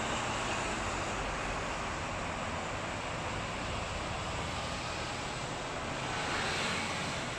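Steady road traffic noise from cars and buses passing on a multi-lane road below, swelling briefly near the end.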